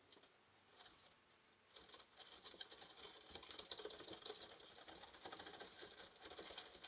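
Faint whine of a micro RC rock crawler's small electric motor, with light pattering and clicking from its tyres and chassis on styrofoam as it climbs. It grows a little louder about two seconds in.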